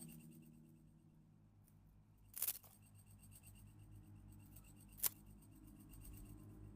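A faint, steady low hum with two short, sharp clicks, about two and a half seconds apart.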